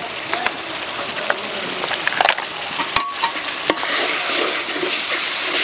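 Onion paste, spices and salt frying in oil in a metal karahi, sizzling steadily, with a metal spatula stirring and scraping against the pan in short clicks. The sizzle grows a little louder about two-thirds of the way through.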